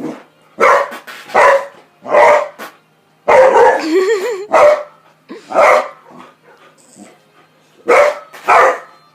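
Boxer dog barking in alarm, about nine loud, sharp barks in uneven bursts, reacting to fart sounds. A brief wavering sound is mixed in with the barks about four seconds in.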